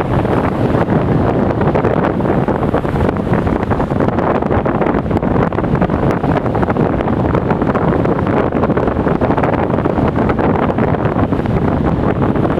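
Strong coastal wind buffeting the microphone, a loud continuous blustery rush with no let-up, over rough sea surf.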